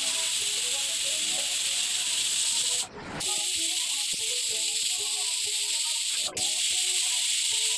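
Aluminium Pigeon pressure cooker whistling: a loud, steady hiss of steam escaping past the weighted valve. It cuts off twice, about three seconds in and just past six seconds, so three whistles follow one another as the cooker reaches pressure.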